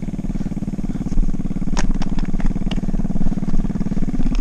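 Road bike rolling fast over a rough, stony dirt road, heard through the on-bike camera: a steady rumble and rattle, with a few sharp clicks about two seconds in.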